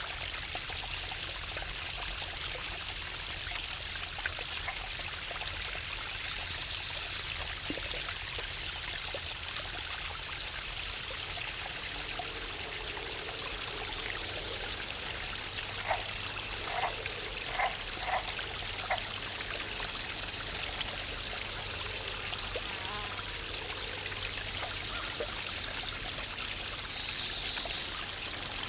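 Waterfall's steady rush of falling water. A little past the middle, a bird gives a short run of four or five quick chirps.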